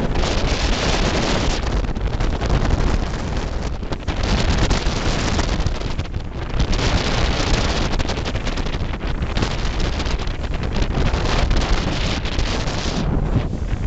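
Wind buffeting the microphone aboard a boat at sea, rising and falling in uneven gusts, over the rush of sea water.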